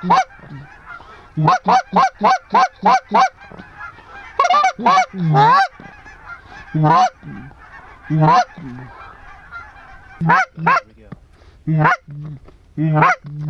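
A hunter's reed waterfowl call blown to circling ducks in short, evenly paced honking notes. A fast run of about four notes a second comes first, then a few longer wavering notes near the middle, then single notes spaced a second or so apart.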